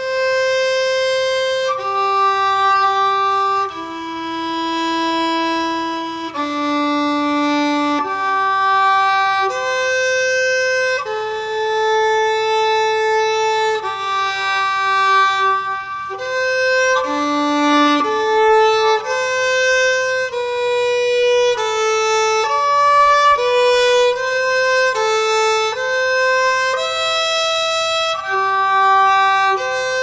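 A violin bowing a slow melody of separate held notes, one at a time. It is the Arctic sea ice extent data set turned into music and played note by note.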